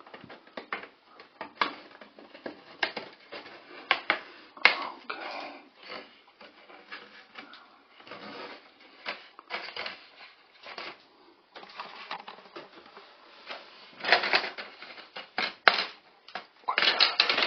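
Plastic grille cover of a Ventline ceiling bathroom exhaust fan being worked loose and pulled down, giving irregular clicks, taps and scrapes of plastic and its wire spring clips, with a louder clatter near the end.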